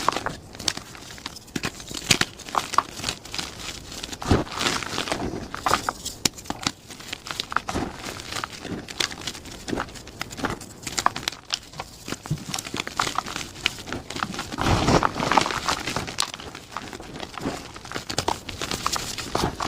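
Plain gym chalk being crushed, giving an irregular run of crunchy crackles that grows denser and louder about fifteen seconds in.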